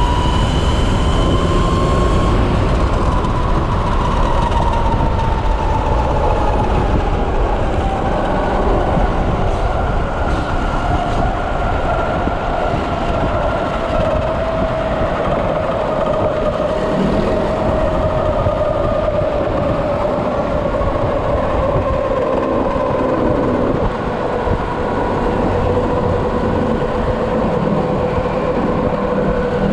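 Electric motor whine of a Kawasaki KLX converted to electric drive, rising slightly at first and then falling steadily in pitch as the bike slows, over a heavy rush of wind on the microphone.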